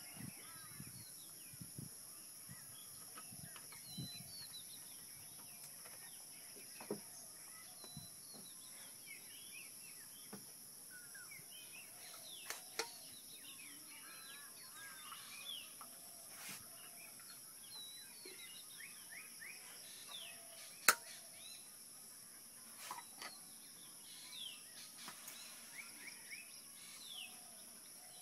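Birds chirping and calling over a steady high-pitched drone, faint overall. A few sharp clicks come through, the loudest about three-quarters of the way in.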